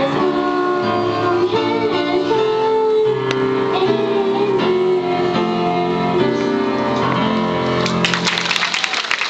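A young girl singing into a microphone over an instrumental accompaniment with piano, holding long notes as the song ends. About eight seconds in, the audience breaks into applause.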